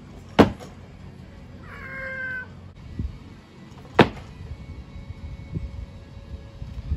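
Barbell snatches: two sharp impacts, about half a second in and again about four seconds in, as the loaded bar is caught and the lifter's feet land on the rubber mat, with lighter knocks between.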